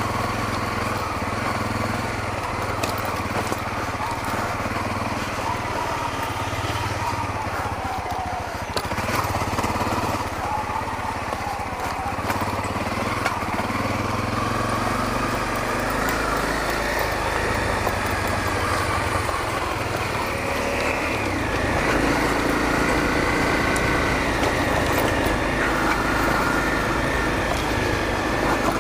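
Honda CRF250L dirt bike's single-cylinder four-stroke engine running while riding, the revs rising and falling with the throttle.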